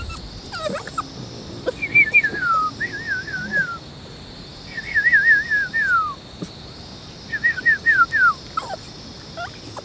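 A dog whining: three bouts of high, wavering whimpers, each sliding down in pitch at its end.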